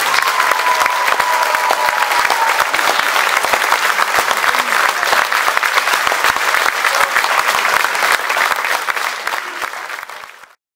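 Audience applauding with dense, fast clapping and a held high tone over the first two seconds. The applause fades over the last two seconds and stops.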